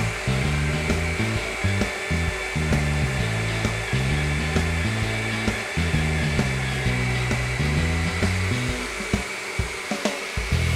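Countertop blender running steadily, blending a cheese-bread batter, under background music.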